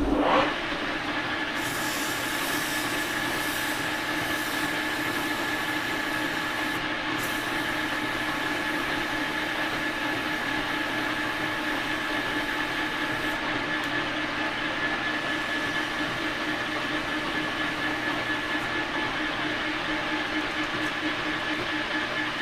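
Metal lathe starting up and running steadily with a gear whine in two steady tones, while an abrasive cloth strip is held against the spinning shaft to polish it. The hiss of the cloth on the shaft fades out a little past halfway.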